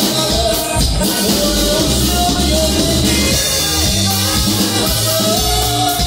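Loud Latin dance music with a steady beat and a walking bass line.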